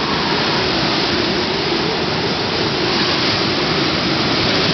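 Typhoon Muifa's winds, estimated at about 80 to 90 mph, as a loud, steady rush of noise with a faint wavering tone underneath.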